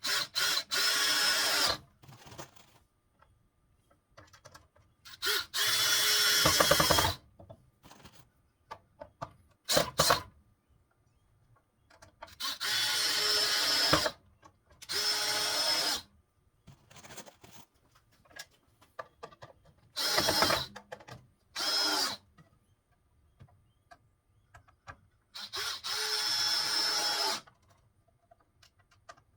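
Power drill driving 1 3/4 inch Phillips wood screws into wooden boards and posts, in about eight short runs of a second or two each with pauses between.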